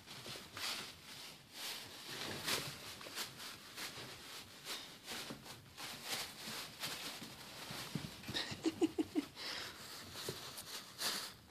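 Thin plastic shopping bag crinkling and rustling in irregular bursts as puppies tug and paw at it. About three-quarters of the way through comes a quick run of short puppy yips, the loudest sounds here.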